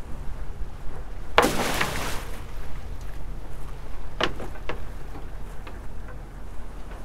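Sea water splashing against a crab boat's side over the steady low hum of the boat's engine. There is a loud splash about a second and a half in and two sharper slaps around four seconds in.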